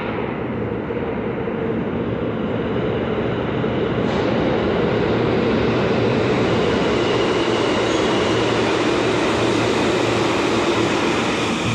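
New York City subway train approaching through the station, its rumble growing louder over the first few seconds and then holding steady. A faint high squeal comes in about halfway through.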